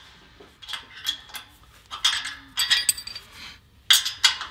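Steel open-end wrench clinking on the nut and washer of a concrete wedge anchor as the nut is tightened down onto a steel rack base plate, a scattered run of sharp metallic clicks. Tightening the nut draws the wedge up into the anchor's prongs and locks it in the concrete.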